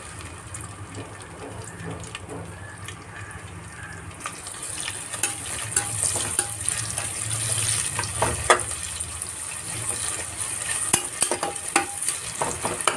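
Sliced onions sizzling in hot mustard oil in a pressure cooker, the sizzle growing stronger about four seconds in. A metal spatula stirs them, scraping and clicking against the pot several times in the second half.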